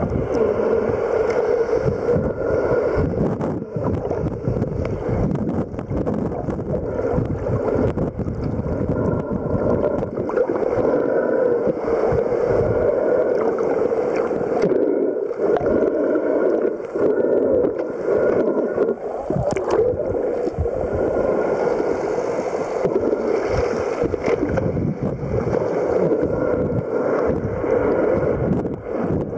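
Muffled, steady rushing and gurgling of water heard underwater through a camera housing, with swimmers' fins churning bubbles.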